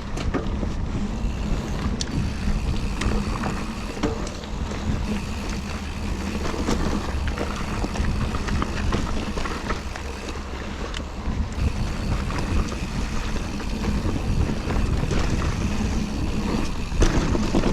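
Mountain bike riding fast down a dirt trail: steady tyre rumble over the ground with wind on the microphone, and scattered sharp rattles and knocks from the bike over bumps.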